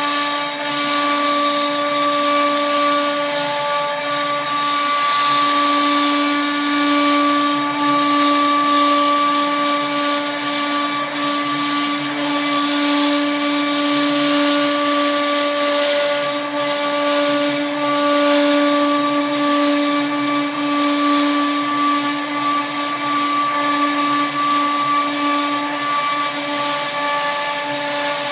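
fCarve CNC router spindle running at a steady whine as the bit cuts through a large sheet of board, with the hiss of the cut underneath.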